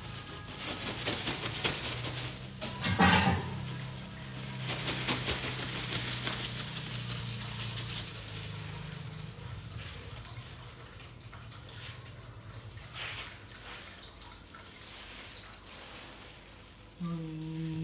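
Clear plastic bag crinkling and rustling as a bagful of red chillies is tipped out and the bag shaken empty, loudest in two stretches in the first half and softer later. A low steady hum runs underneath through the first half.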